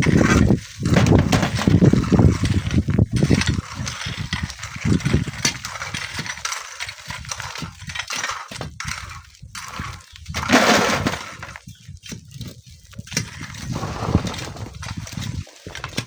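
Strong wind gusting over the microphone, a loud uneven roar that swells and drops, heaviest in the first few seconds and again about ten seconds in.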